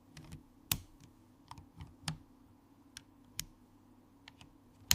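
Scattered sharp clicks and light taps, about a dozen at irregular intervals over a faint steady hum, with one loud click near the end.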